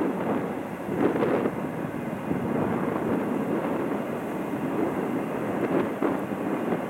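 Double-stack intermodal freight train rolling past: a steady rumble of steel wheels on rail, with brief sharper clanks about a second in and again near the end.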